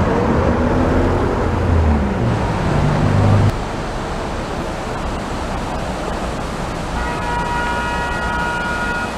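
Street traffic with a motor vehicle passing, cut off suddenly about three and a half seconds in by the steady rush of river water pouring over a weir. Near the end a horn sounds for about two seconds over the water.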